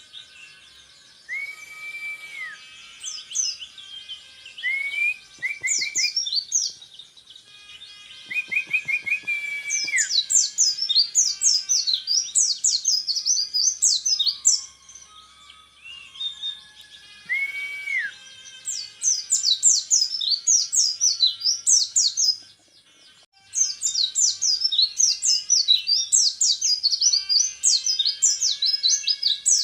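Orange-headed thrush singing in long rapid-fire runs of fast, high rising notes, the 'tembakan repet' style that bird-song contest fanciers prize. A few lower drawn-out whistles come in the first half, and there is a brief break a little past two-thirds through.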